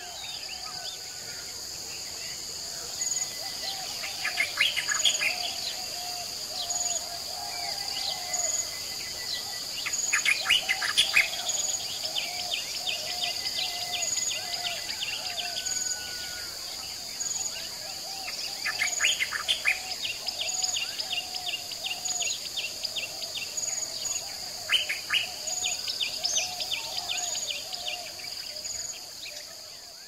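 Nature soundscape: several birds singing and calling in bursts and rapid trills over a steady high insect drone, with a short high chirp repeating about every second and a half. It fades out near the end.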